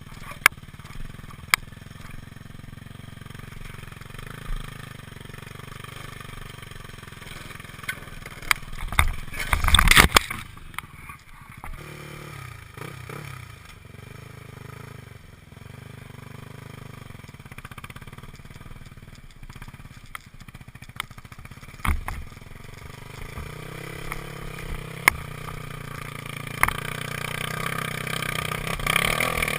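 Dirt-bike engine running on a trail, with scattered sharp clicks and knocks and a louder clattering burst about ten seconds in.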